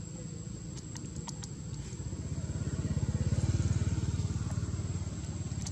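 A vehicle engine, motorcycle-like, running off-screen, swelling to its loudest about three and a half seconds in and then easing off, with a steady high thin whine above it.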